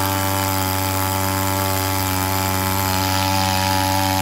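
The small engine of a floating pump boat runs steadily at a constant speed, driving its aluminium-alloy water pump at full output.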